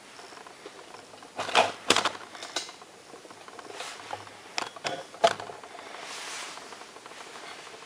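A few sharp clicks and knocks from things being handled on the workbench, the loudest about a second and a half to two seconds in and again about five seconds in, over a low steady hiss.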